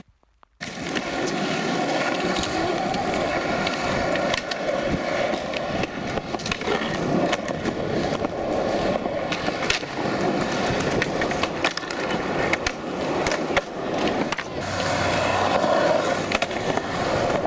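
Skateboard wheels rolling over rough pavement: a continuous rumble dotted with sharp clicks and knocks, starting suddenly about half a second in.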